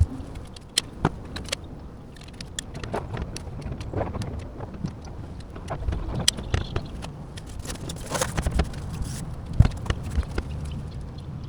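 Rigid foam insulation boards being cut and handled by hand: scattered clicks, taps and scrapes at irregular intervals, over a low wind rumble on the microphone.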